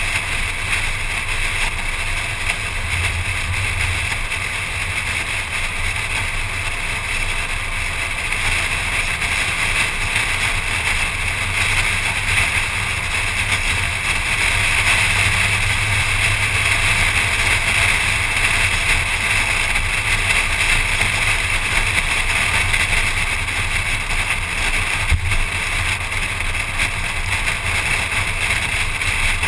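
Car driving at road speed, heard from a camera mounted outside on the hood: steady wind rushing over the microphone with tyre and road noise and a low rumble, swelling a little midway.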